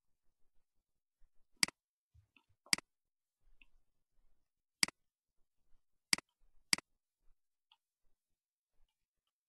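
Computer mouse button clicking five times at uneven intervals, the last two close together: sharp, single clicks with faint small ticks between them.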